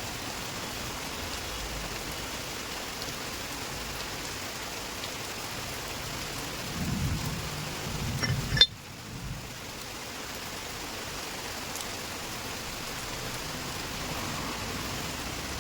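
Heavy rain falling steadily. About seven seconds in, a low rumble builds and ends in a sharp knock just before the nine-second mark.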